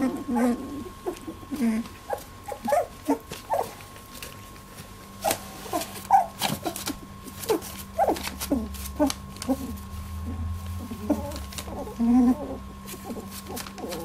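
Young Labradoodle puppies, about 18 days old, giving many short whimpers and squeaks in quick succession, with a faint steady hum underneath.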